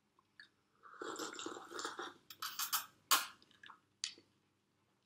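A person sipping a drink from a plastic cup, then a run of sharp clicks and crinkles as the cup is handled.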